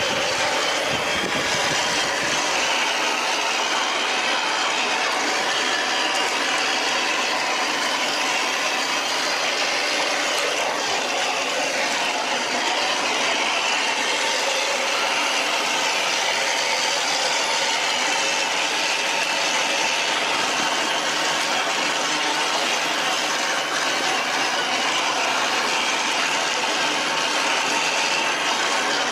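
Electric motor and gear drivetrain of a radio-controlled scale off-road truck whirring steadily as it drives.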